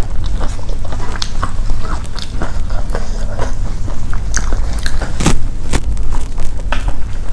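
Close-miked chewing and biting sounds from eating rice and fish by hand, full of small wet clicks and crackles, with the paper wrapping crinkling as fingers pick food from it, over a steady low hum.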